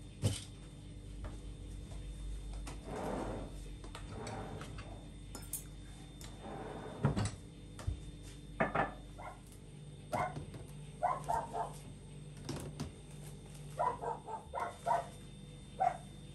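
Wicker baskets rustling and knocking on a wooden countertop, then a string of short animal calls, singly and in quick groups of two or three.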